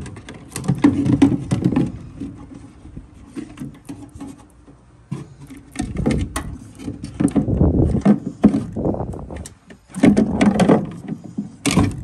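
Irregular handling noise: knocks, clicks, scrapes and rustling as the plastic inducer housing, sheet-metal panel and wiring of a furnace are worked by hand. It comes in several loud spells, with a sharp click near the end.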